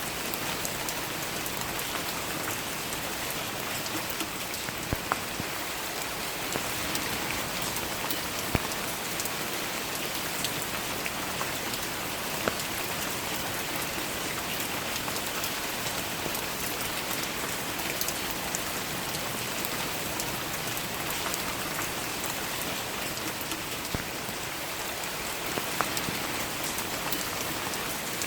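Steady rain falling, with scattered louder individual drops tapping sharply close by every few seconds.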